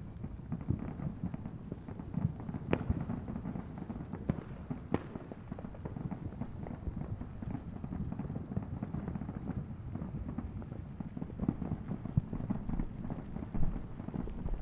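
Distant fireworks: a continuous low rumble of overlapping booms and pops, with a few sharper, brighter cracks about three, four and five seconds in.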